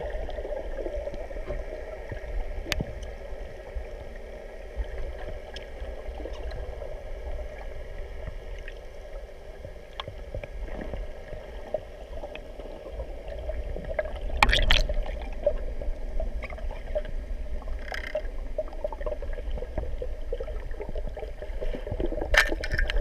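Muffled underwater sound: a steady low rumble of moving water with a faint hum and scattered clicks. There is a louder stretch of churning noise about two-thirds of the way through, and again near the end, where a spearfisher's fin kicks churn the water at the surface.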